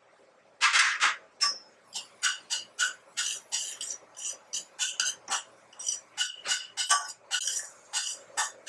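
Metal spoon scraping and clinking against a stainless steel saucepan, stirring semolina in ghee, in short repeated strokes about three a second. It begins with one longer, louder scrape just under a second in.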